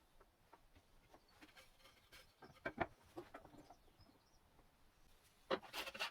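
Light knocks and taps of wood being handled in a workshop, with a sharper cluster of knocks about three seconds in and a burst of dense scraping near the end. Faint bird chirps in the background.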